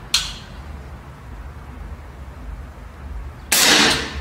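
Evanix K550 PCP revolver-action air rifle being shot: a short sharp crack just after the start, then a longer, loud blast of about half a second about three and a half seconds in.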